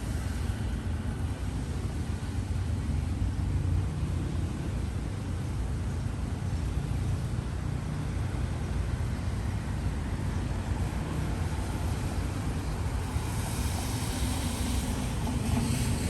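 Steady low rumble and hiss of city street traffic, with a louder hiss swelling near the end as something passes.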